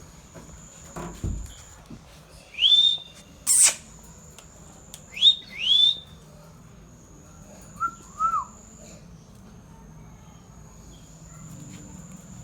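Pet ringneck parrot calling: four loud, short, upward-sweeping shrieks in the first half, one especially sharp, then two softer lower notes about eight seconds in.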